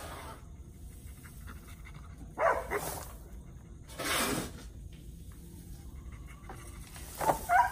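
Three short animal sounds about two and a half, four and seven seconds in, the last the loudest; the first and last carry short pitched cries, the middle one is breathy.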